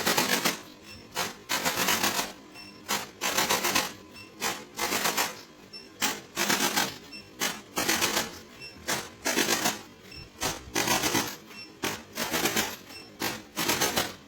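Rapid mechanical clicking that comes in about a dozen short bursts, each under a second long, with short gaps between them, like a handheld percussive device being switched on and off.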